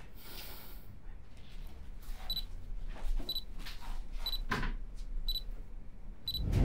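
Camera self-timer beeping once a second, short high beeps counting down to the shot, starting about two seconds in. Faint rustles and knocks of people settling into position between the beeps.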